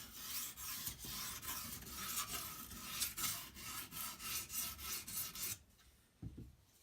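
Edge Pro sharpening stone rubbing along a steel butcher knife's edge in quick, light, repeated strokes, testing where it removes the black marker on the bevel. The strokes stop about five and a half seconds in, followed by one brief low knock.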